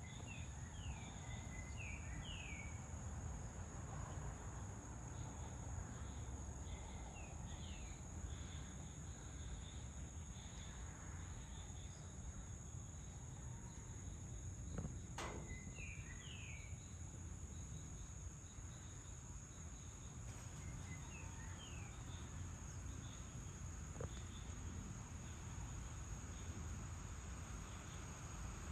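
Evening outdoor ambience: a steady high-pitched insect drone, with birds calling in short series of quick notes several times over a low background rumble. A single sharp click comes about halfway through.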